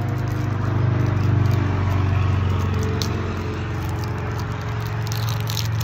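A steady low mechanical hum, like a nearby engine or motor running. About five seconds in, the paper-and-foil wrapper of a chocolate bar crinkles as it is torn open.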